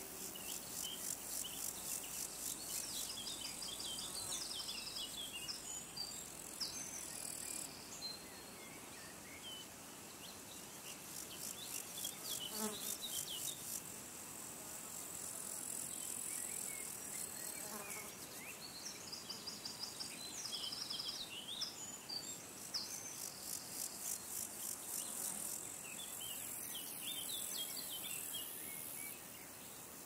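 Very high, rapidly pulsed insect trills that come and go in stretches of several seconds, switching off and on abruptly a few times, with scattered short bird chirps over a faint outdoor hush.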